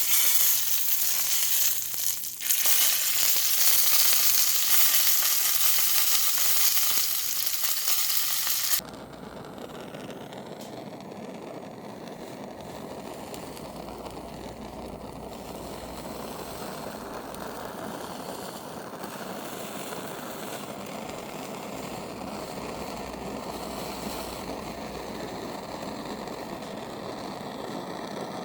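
Steak sizzling loudly in hot fat, a steady hiss that breaks off abruptly about nine seconds in. It gives way to a quieter, steady low rumble for the rest of the time.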